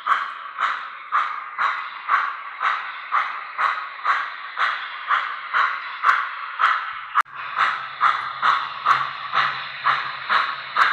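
MTH Premier O-gauge 4-4-0 American model steam locomotive running, its onboard sound system playing steady steam chuffs at about two a second. After a break about seven seconds in, a low steady hum from the running engine joins the chuffs.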